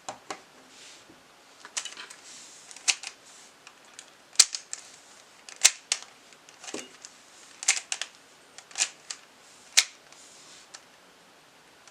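Plastic twisty puzzles being handled: about a dozen sharp, irregular plastic clicks and clacks, with soft rustling between.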